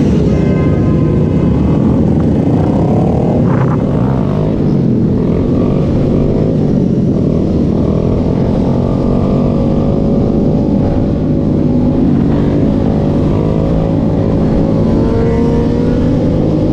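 Motorcycle engines running under way on a group ride, their pitch slowly rising and falling with the throttle over a steady low rumble.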